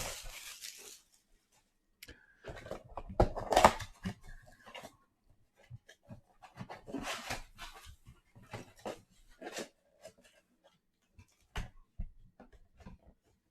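A trading-card box being unwrapped and opened by hand: irregular bursts of tearing and rustling wrapper and cardboard, with small handling clicks. The loudest bursts come a few seconds in and again about halfway.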